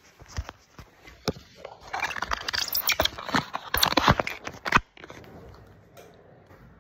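Handling noise on a phone's microphone: scattered clicks and knocks, then a dense crackling rustle from about two seconds in that cuts off suddenly about five seconds in.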